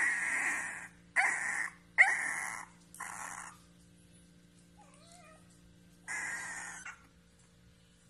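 Beagle puppy crying: five loud, harsh squealing cries, some rising at the start, with a faint whimper between the fourth and fifth.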